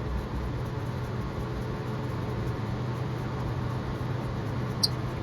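A steady low hum under an even hiss, with one light, sharp click near the end.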